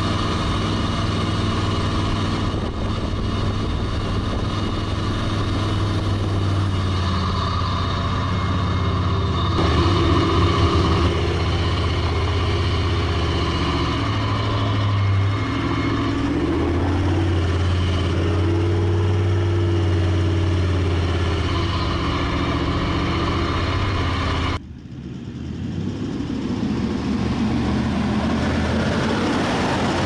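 Toyota LandCruiser 76 Series V8 turbo-diesel running as the wagon crawls along a dirt track, its revs rising and falling. About three-quarters of the way through, the sound drops away suddenly and comes back as a steadier, lower engine note.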